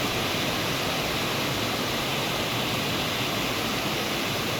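Waterfall cascading into rock pools: a steady, even rush of falling water.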